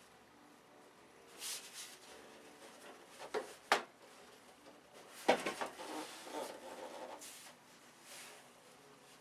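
Light handling noises: a few short rubs and several sharp knocks, the loudest about five seconds in.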